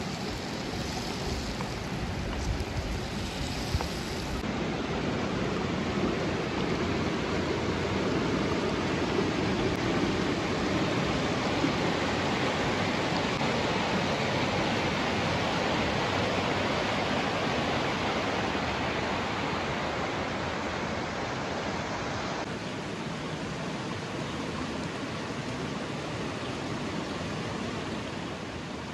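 A river full of water rushing steadily.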